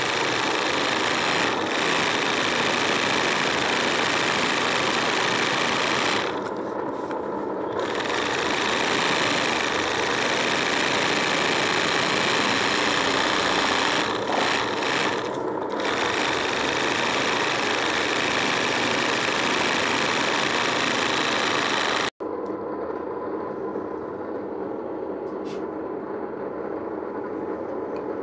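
Sewing machine running steadily as it stitches hand-guided embroidery on fabric stretched in a hoop, easing off briefly twice. About three-quarters of the way through the sound cuts off abruptly, and a quieter, duller steady sound follows.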